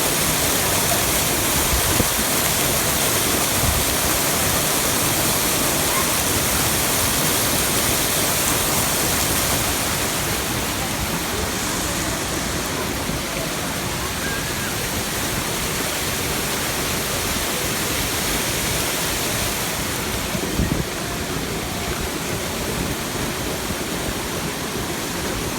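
Waterfall rushing: a steady, even roar of falling water, a little quieter from about ten seconds in.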